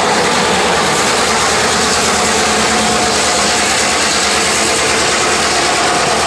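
Norfolk Southern GP38-3 diesel-electric locomotive with its EMD 16-cylinder two-stroke diesel engine running steadily as it rolls slowly past close by, pulling hopper cars. The sound is a loud, even mechanical rumble throughout.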